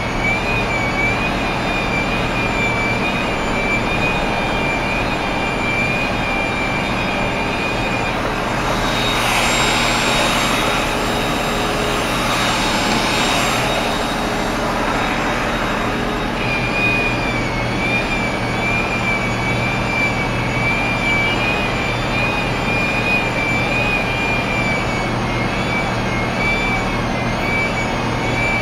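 Engine noise from vans and cars standing in a traffic jam, a steady hum with a high, slightly wavering whine over it. A louder rushing hiss swells and fades for several seconds in the middle.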